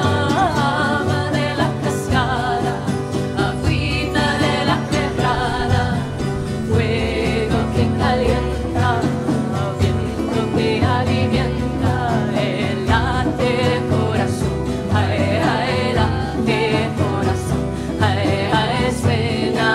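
Live acoustic folk song: a guitar strummed steadily, a hand drum keeping the beat, and voices singing over it.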